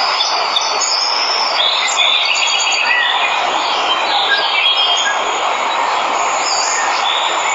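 Steady rushing of a waterfall, with several birds chirping and calling over it, including a quick trill a little after two seconds in.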